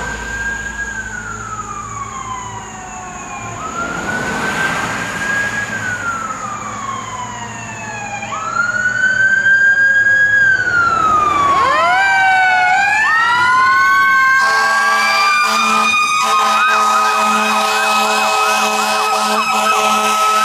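Fire truck warning devices: a siren winding up and slowly coasting down several times, growing louder about eight seconds in. About two-thirds of the way in, steady horn blasts cut in and hold over the siren, with a second siren yelping rapidly.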